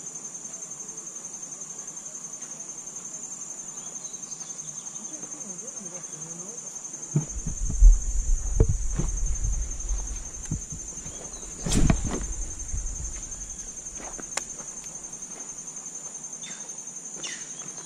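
Steady high-pitched chirring of insects, crickets by the sound of it. Between about seven and thirteen seconds in, low bumps and rustling of the camera being moved and handled cover it, with one sharp knock near twelve seconds.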